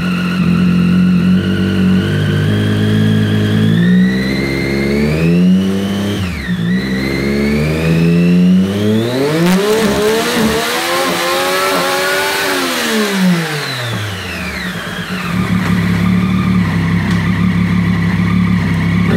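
Triumph Daytona 675R three-cylinder engine through a Scorpion full exhaust with the cat removed, rear wheel spinning free on a paddock stand. It idles, revs up in first, and drops sharply in pitch as the quickshifter snaps it into second about six seconds in. It then climbs to about 10,000 rpm, holds there for about three seconds and falls back to idle.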